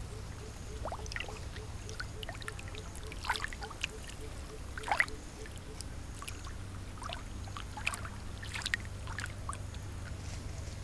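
Water splashing and sloshing as a large fish wriggles through shallow muddy water, in irregular splashes with the loudest about five seconds in, over a steady low hum.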